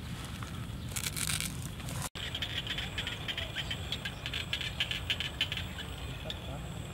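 Rice-field ambience: after a brief rustle about a second in, a fast, dense clicking chorus of frogs and insects sets in about two seconds in and runs on over a low steady rumble.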